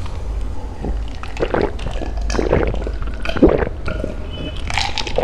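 Close-up gulping of iced cola from a glass jar: several swallows, about one a second.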